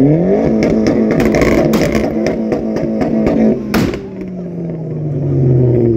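Modified Volvo 850's engine revved hard in a rev battle. The revs climb quickly and hold high while the exhaust pops and crackles, one loud bang comes from the exhaust about four seconds in, then the revs fall away.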